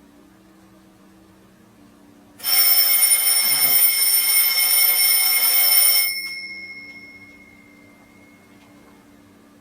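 Alarm clock bell ringing: a loud, rapid ring starts suddenly about two and a half seconds in and lasts about three and a half seconds. It cuts off abruptly, and the bell's tone fades away over the next few seconds.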